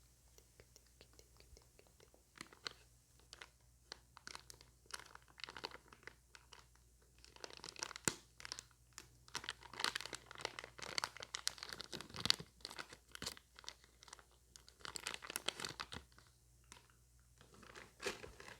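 Close-miked ASMR trigger sounds: soft, irregular crinkling and crackling clicks that come in clusters, busiest in the middle and again briefly near the end.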